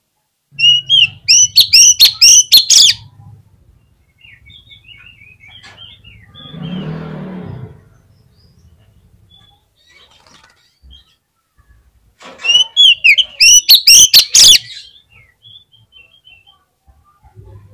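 Oriental magpie-robin (kacer) singing in two loud bursts of fast, repeated rising notes mixed with sharp clicking notes, about ten seconds apart, with faint scattered chirps between them. A softer, noisy burst of about a second comes halfway between the two bursts.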